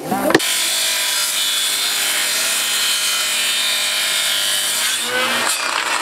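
Handheld electric circular saw cutting through plywood: a steady motor whine with the rasp of the blade in the wood. It starts abruptly about half a second in and dies away shortly before the end.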